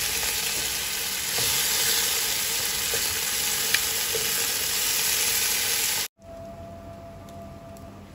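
Chicken pieces sizzling as they are pre-fried in hot oil in a pot, with a few light clicks as they are turned. The sizzle cuts off abruptly about six seconds in, leaving a much quieter room with a faint steady tone.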